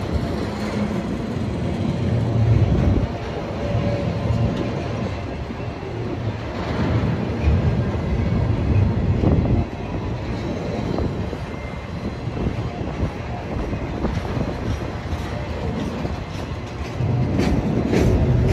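CSX maintenance-of-way rail train rolling by, a steady low rumble of the train with irregular wheel clacks.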